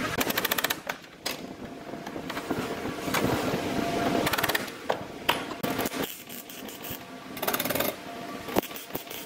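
Sheet-metal car body panels clanking and tapping as they are handled and clamped with locking pliers: scattered sharp metal knocks, with a quick run of rapid clicks near the start and another near the end.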